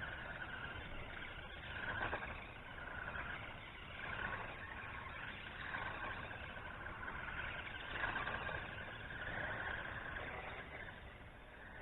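Small electric RC buggy's motor whine (1:18-scale HBX Hailstorm 4WD) as it is driven round in figure-eights, surging and easing off about every two seconds with throttle and turns.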